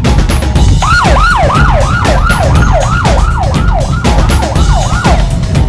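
Electronic siren yelping in quick rise-and-fall sweeps, about three a second, starting about a second in and stopping shortly before the end, over music with a steady drum beat.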